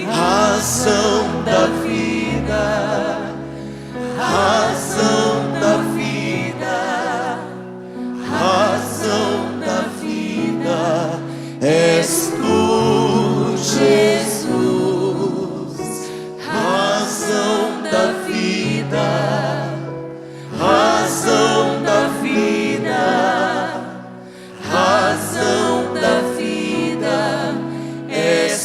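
Gospel worship song: voices singing in phrases, some every few seconds, over sustained instrumental chords and bass.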